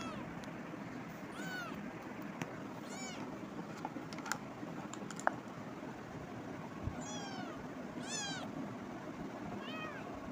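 Young kitten meowing: about six short, high-pitched meows, each rising and then falling in pitch, over a steady background hiss.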